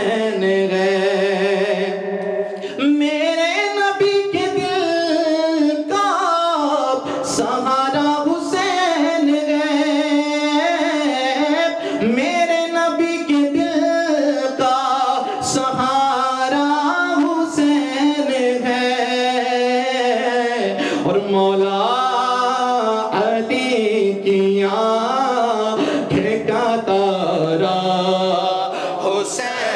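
A man singing an Urdu devotional naat solo into a microphone, drawing out long, wavering, ornamented notes with short breaths between phrases.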